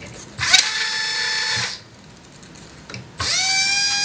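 Small electric motor, run through an electronic speed controller from the RC transmitter's throttle channel, whining in two short runs. Each run spins up, holds steady and winds down. The first ends less than two seconds in, and the second starts a little after three seconds at a higher pitch.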